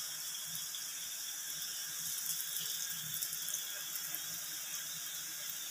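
Jalebis frying in hot oil in a shallow pan: a steady sizzle with faint crackles.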